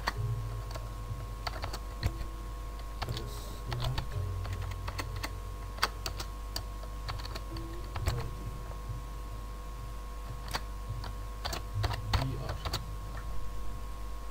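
Typing on a computer keyboard: irregular runs of keystrokes with short pauses, over a steady low hum.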